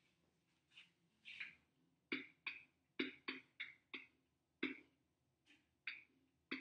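Handwriting: about a dozen short, faint strokes of a pen at an irregular pace, as numbers are written out.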